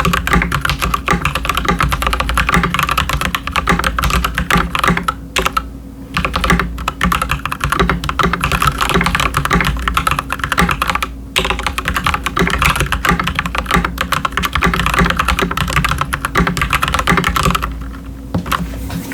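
Fast, continuous typing on a stock Akko 3098S mechanical keyboard with linear red switches (Gateron G Pro Red, Keychron Red on the numpad) and PBT keycaps. It pauses briefly about five and eleven seconds in and stops near the end.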